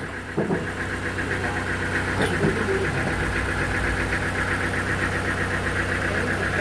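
Engine running steadily at idle, with an even rhythmic throb.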